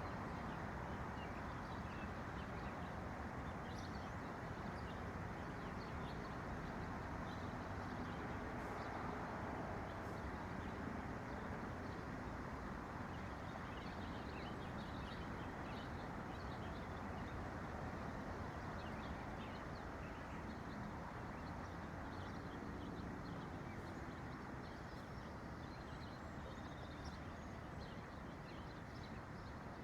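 Small songbirds chirping, with short high calls scattered throughout, over a steady low background rumble.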